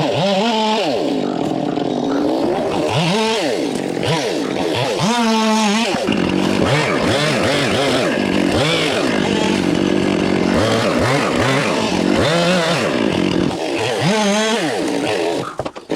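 Chainsaw engine running loud, its revs rising and falling over and over as it cuts through melaleuca wood.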